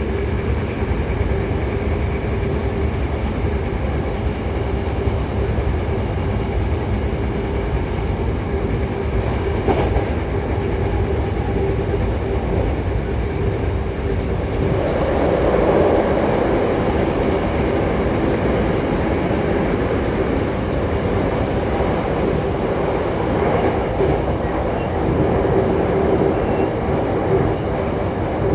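Hankyu 8000 series commuter train running between stations, heard inside the car: steady wheel-on-rail noise with clickety-clack and a constant hum, swelling louder about halfway through.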